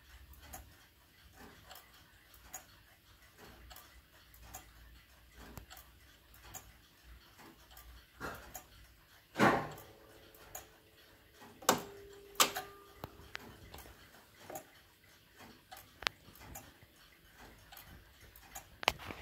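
Restored Magneta electric pendulum master clock ticking steadily, with several louder clicks midway, two of them leaving a short ringing tone.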